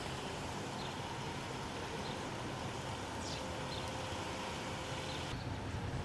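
Low, steady rumble of a group of motorcycles running in the distance under outdoor background noise, with a few faint high chirps.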